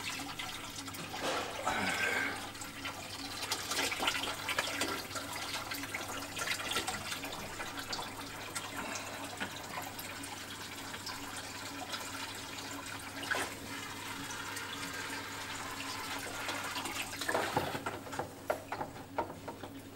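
Chilled return water pouring and splashing out of a candy-cane outlet pipe into a reef tank's sump, a steady rush over a low, constant hum.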